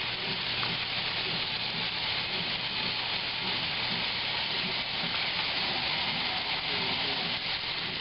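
1955 Blackstone washing machine running with water in the tub: a steady rushing hiss of water over a low, steady hum.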